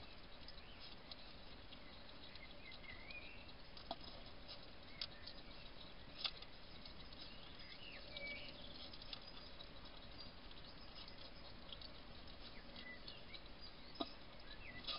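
European hedgehog feeding close to the microphone: faint, scattered clicks of chewing and lapping, with a few sharper clicks about four, five, six and fourteen seconds in.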